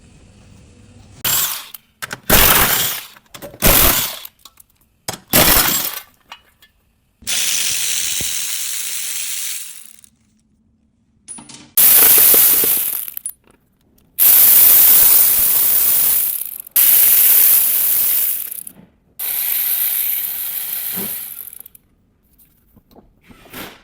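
Workshop power tools run in repeated loud bursts, most likely driving fasteners while the transfer case is taken out: four short bursts in the first six seconds, then longer runs of about two seconds each.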